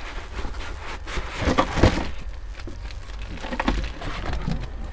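Packaging being handled during unpacking: irregular rustling and crackling with a few light knocks, loudest about two seconds in, over a low steady hum.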